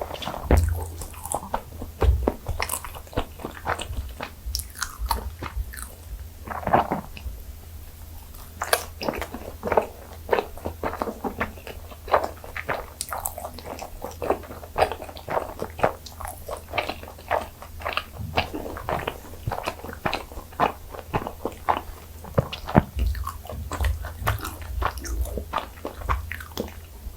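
Close-miked chewing and biting of butter-baked gijeong-tteok (Korean fermented rice cakes), a steady run of many small, irregular mouth clicks and smacks.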